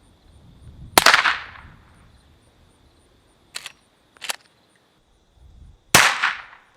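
Two suppressed .44 Magnum shots from a Marlin 1894 lever-action carbine fitted with a Griffin Armament Resistance 45 suppressor, heard from downrange about five seconds apart. Each shot is a sharp report with a short ringing tail. Two short, quieter clacks fall between them.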